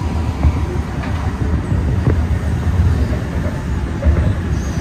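Cabin sound of an Alstom NS-16 rubber-tyred metro train running between stations: a steady, loud low rumble from the running gear and traction.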